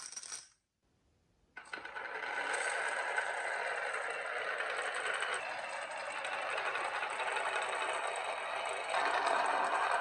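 Marbles rolling along a marble run track: a steady rattling roll that starts about a second and a half in, changing in tone about halfway through and again near the end as the marbles move onto other track pieces.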